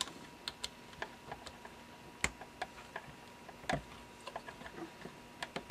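Small, irregular clicks and taps of wires and plastic connectors being handled and pushed into a plastic project box, with a couple of sharper clicks past the middle.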